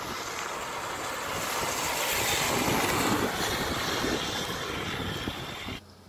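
A vehicle passing on a snowy road: a rushing noise that swells to its loudest two to three seconds in, then cuts off abruptly near the end.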